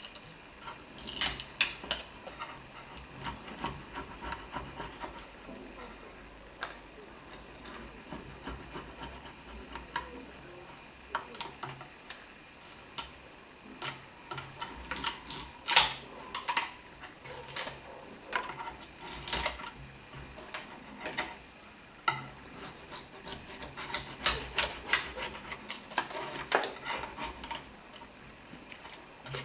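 A knife blade scraping and prying at old wood veneer on a cabinet top to lift it off. The scraping strokes come irregularly, with sharp clicks bunched in clusters.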